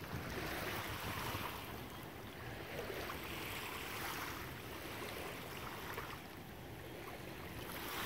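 Small waves lapping on a sandy beach, a soft wash that swells and falls back every couple of seconds, over a low rumble of light wind on the microphone.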